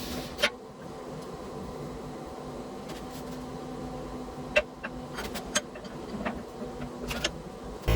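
Steady low machine hum in a blacksmith shop, with a handful of light, scattered clicks.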